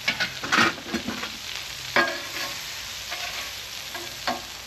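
Butter sizzling on a hot steel flat-top griddle, a steady hiss, with a metal spatula scraping and tapping across the plate a few times as it spreads the melted butter.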